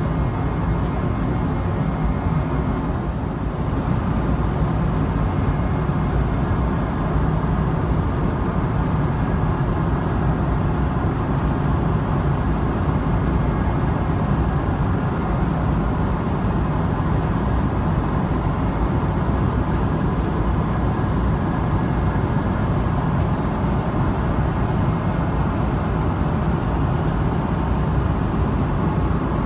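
Steady in-flight cabin noise of a Boeing 777-300ER with GE90-115B engines: a constant low rush of airflow and engine noise.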